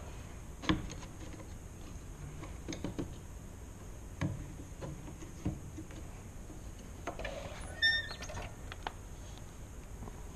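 Scattered light knocks and clicks of wood and metal as a wooden stop block and bar clamp are repositioned on a miter saw's fence, with a short metallic clink about eight seconds in. The saw is not running.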